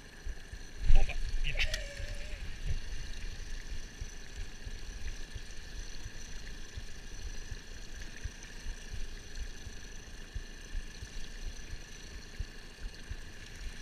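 Wind gusting on the microphone and small waves slapping against a small boat, with a loud thump about a second in.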